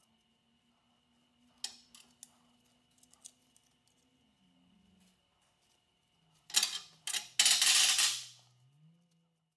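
Aluminum sheet and hand tools being handled on an aluminum welding table: scattered light metallic clicks and clinks, then near the end a burst of loud metal clattering and scraping lasting about two seconds.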